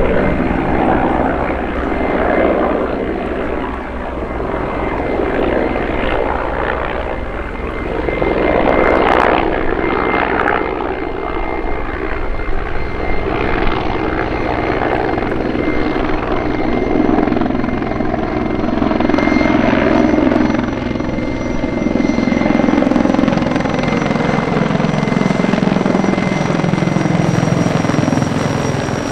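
Mil Mi-24 Hind attack helicopter flying past in a display: the rapid beat of its main rotor under the steady whine of its turboshaft engines. The pitch of the sound slowly rises and falls and it swells in loudness as the helicopter passes and turns.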